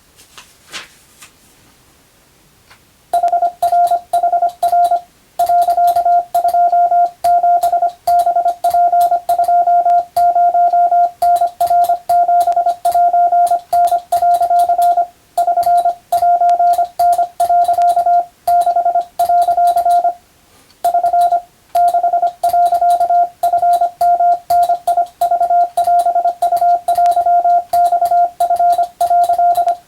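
Hand-sent Morse code: a steady tone of about 700 Hz keyed in quick dots and dashes, starting about three seconds in, with the telegraph key's mechanical clicks along with the keying and a few short pauses between groups.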